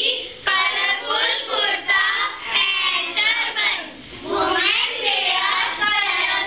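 A child's high voice reciting in a sing-song way, with only brief pauses.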